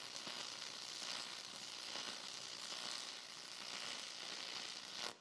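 Stick welding on AC with a 1/8-inch red 5P E6010 rod: a steady crackling arc throwing heavy spatter, staying lit even though the rod is not rated for AC. The arc noise cuts off sharply about five seconds in as the arc is broken.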